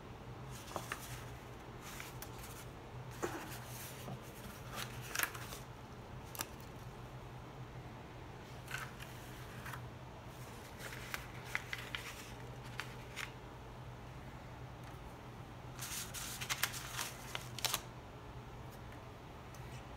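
Stiff, crinkled parchment pages being handled and shuffled, crackling in several short bouts with a few light clicks, over a steady low hum.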